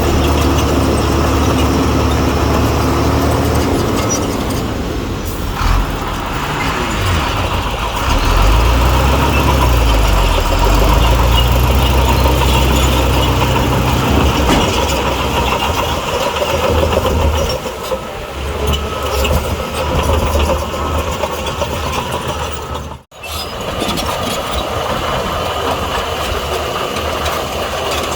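Heavy earthmoving machine's engine running loudly and steadily, revving up and back down about a third of the way in. The sound cuts out for an instant near the end.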